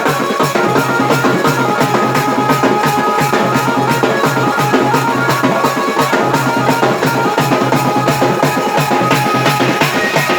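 Loud dance music with a steady, driving drum beat.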